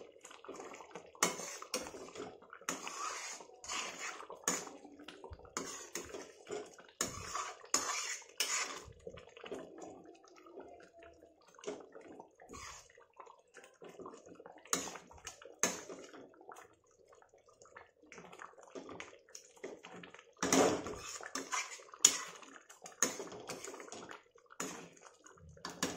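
A steel ladle stirring thick dal in a steel kadai, making repeated wet sloshing strokes with metal scraping on the pan. It is stirred every so often to keep the thickening dal from sticking to the bottom. The strokes ease off for a few seconds about midway, then come loudest later on.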